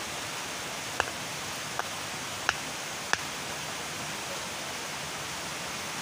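Steady, even rushing hiss, with four short, sharp clicks in the first half.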